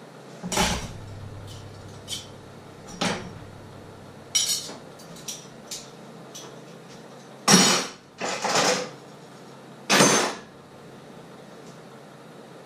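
Kitchenware being handled: a series of irregular clatters and knocks, some short and some rattling for about half a second, the loudest about halfway through and again near the end.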